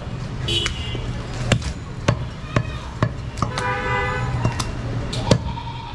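A butcher's cleaver chopping goat meat on a wooden log block: sharp knocks, about a dozen, roughly one every half second. Behind them is a steady low hum with voices, and a horn-like tone sounds for about a second in the middle.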